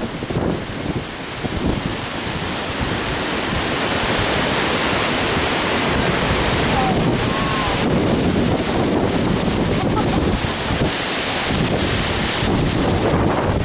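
Strong tornado winds rushing steadily and buffeting the microphone as an EF4 tornado passes close by.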